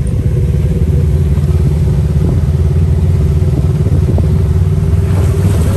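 Off-road buggy engine running steadily while driving, a loud low rumble with a steady hum above it, heard from inside the open cab.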